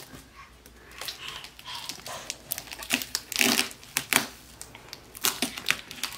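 Packing tape on a cardboard box being picked and pulled at by a baby's fingers: irregular crinkling and crackling of the tape and cardboard.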